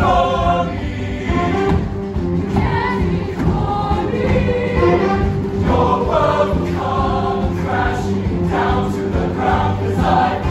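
A large mixed show choir singing together over an instrumental accompaniment with a steady bass line.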